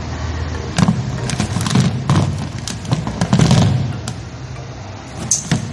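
A string of short clicks and knocks with low thuds, as an analog multimeter and its test leads are handled and picked up; most come in the first four seconds, with two more near the end.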